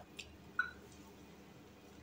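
Quiet room tone with two faint short clicks in the first second.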